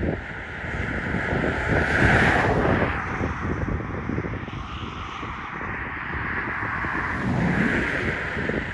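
Wind buffeting the microphone, with the hiss of passing road traffic swelling about two seconds in and again near the end.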